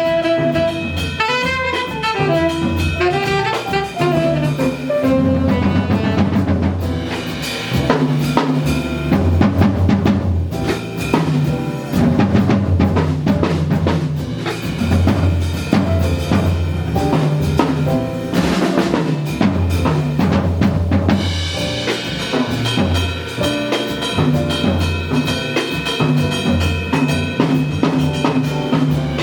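Live jazz band playing, with the drum kit to the fore over the bass. A quick melodic run rises and falls over the first few seconds, and held higher tones come in about two-thirds of the way through.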